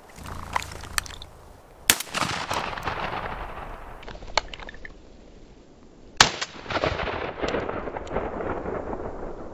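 Two shotgun shots about four seconds apart, each a sharp crack followed by a tail that fades over two to three seconds.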